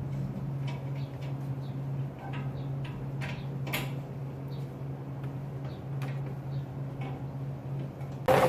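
Steady low hum with scattered light clicks and taps of metal parts and tools being handled, and one louder clank near the end.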